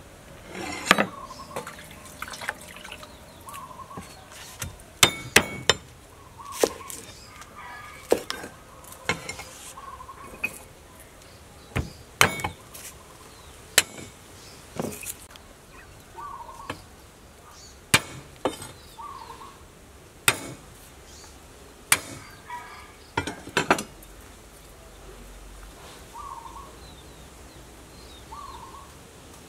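Irregular sharp knocks and taps of a knife and hands on a thick wooden chopping board while garlic and shallots are peeled and cut, about one every one to two seconds. A bird calls faintly in short, repeated notes between them.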